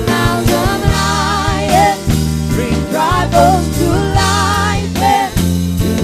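Live contemporary worship song: several singers on microphones singing with vibrato over a band with drum kit and bass guitar.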